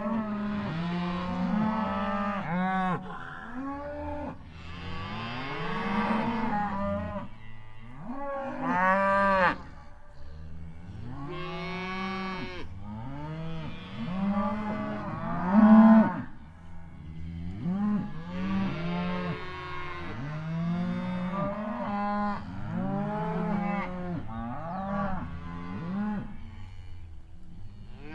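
Herd of cows mooing, many overlapping calls one after another with no pause, the loudest about halfway through.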